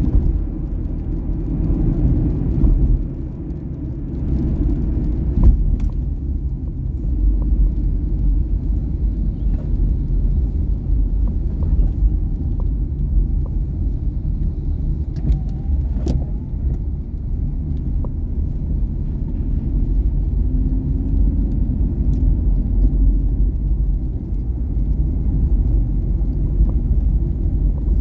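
Cabin sound of a Wuling Confero MPV being driven on a wet road: a steady low rumble of engine and tyres, with a few faint ticks here and there.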